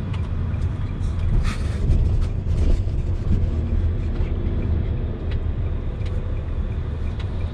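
Steady low rumble of a car's engine and tyres heard from inside the cabin while driving slowly, with a couple of brief rustles in the first few seconds.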